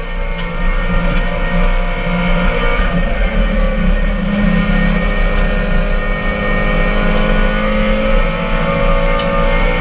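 Peugeot 206 RC's 2.0-litre four-cylinder engine running hard under load, heard from inside the stripped Group N competition car's cabin with road and wind noise. The sound drops briefly right at the start, then runs on steadily.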